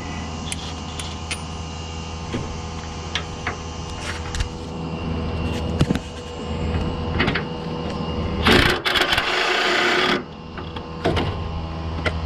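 Tools clinking on metal against a steady background hum, then an impact wrench runs in one loud burst of about a second and a half, near the end, loosening a suspension bolt.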